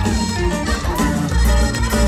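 Live Latin dance music from a band playing through loudspeakers, with a strong bass line and a steady beat.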